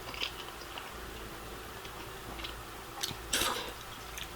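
Close-miked chewing of a mouthful of thick noodles: soft wet mouth sounds with small clicks, and one louder brief wet sound a little over three seconds in.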